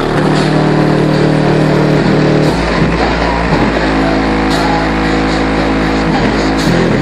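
Loud bass-heavy music played through a car audio system with two 15-inch Ground Zero Plutonium XQ subwoofers, its bass notes changing in steps; a deeper bass note comes in about two and a half seconds in and holds until near the end.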